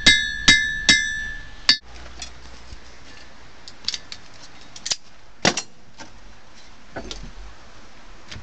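Hand hammer striking hot steel on a 130-pound anvil: four ringing blows about half a second apart in the first two seconds, each leaving a high clear ring. After that come lighter, scattered metal taps and clinks.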